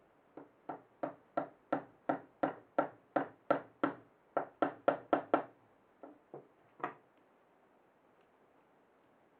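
A run of sharp knocks at a steady pace of about three a second, then three slower, more widely spaced knocks.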